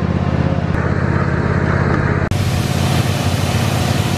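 A John Deere GT235 lawn tractor engine running with a steady pulsing beat. About two seconds in it cuts to a pressure washer blasting water onto a sprayer tank: a loud hiss of spray over the steady hum of its motor.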